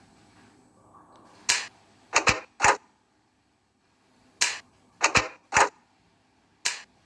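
A run of about nine short, sharp pops in irregular groups of one to three, with dead silence between them, like edited-in cartoon sound effects.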